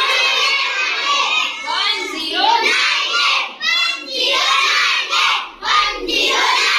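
A roomful of children chanting a Hindi poem loudly together in chorus.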